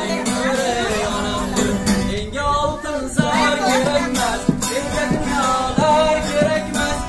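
A man singing a song to acoustic guitar, which is strummed in a steady rhythm.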